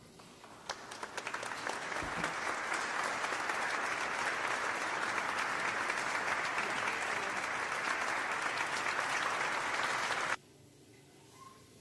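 Applause, many hands clapping. It swells in over the first two seconds, holds steady, then cuts off abruptly near the end.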